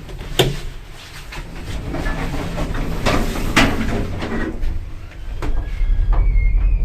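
Old ZREMB passenger lift: clicks and knocks with the sliding doors closing, then the car starts off, with a steady low rumble and a high whine coming in near the end.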